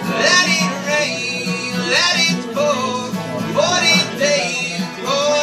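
A man singing while strumming an acoustic guitar, his voice in phrases over a steady strum.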